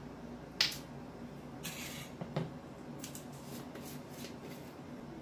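Measuring spoon and small cup handled on a countertop while ground cumin is measured out: a sharp tap about half a second in, a short scrape near two seconds, another tap just after, then faint light clicks.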